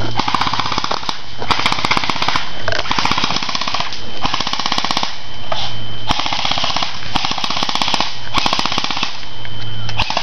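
Airsoft electric guns firing on full auto, in repeated bursts of about a second each, every burst a rapid stream of sharp clicks.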